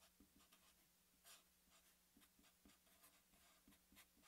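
Faint scratching of a Sharpie felt-tip marker writing on paper, a run of short irregular strokes.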